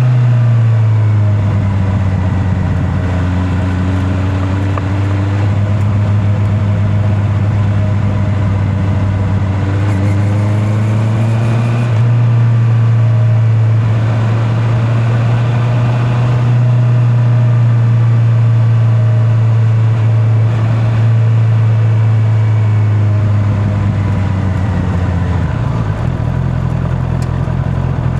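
Honda CB650R's inline-four engine running at steady cruising revs, recorded from a mic in the rider's back pocket. The engine note drops at the start, picks up about twelve seconds in, sags gradually, then rises again near the end.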